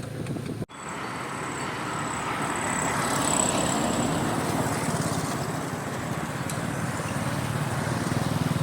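Tuk-tuk on the move: its small engine runs steadily under road and wind noise, with a faint high whine. The sound cuts out for an instant under a second in.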